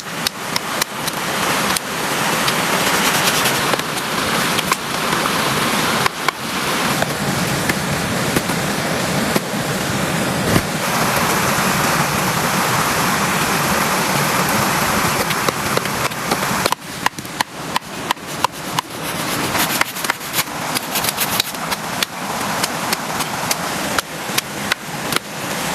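Heavy rain falling steadily, with frequent sharp taps of drops striking a surface close to the microphone, thickest about two-thirds of the way in.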